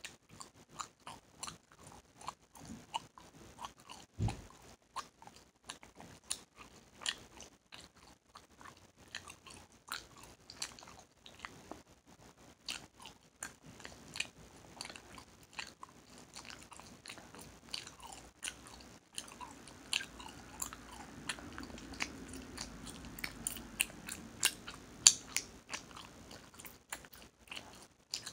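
Hubba Bubba bubble gum being chewed open-mouthed, close up: a steady run of irregular wet smacking clicks, about two or three a second, with one especially sharp snap near the end.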